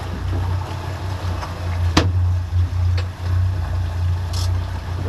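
Outboard boat engines running at trolling speed, a steady low drone. A sharp click about two seconds in and a softer one a second later.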